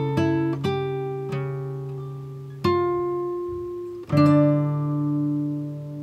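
Background music: slow plucked-string notes and chords, each struck and left ringing until it fades, with a stronger chord about four seconds in.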